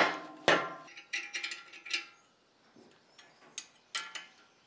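Wooden mallet knocking a steel gate-hinge crank onto a flywheel shaft, two blows with a metallic ring, one right at the start and one half a second later. Then light metallic clicks and clinks as spanners work on the crank's clamping nut and bolt.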